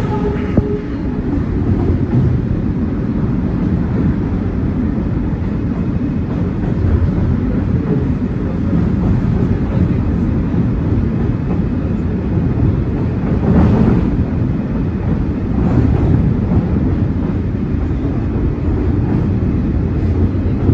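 New York City subway train running at speed over the Williamsburg Bridge, heard from inside the car: a steady, loud rumble of wheels on rail, with a few sharper clacks about two-thirds of the way through.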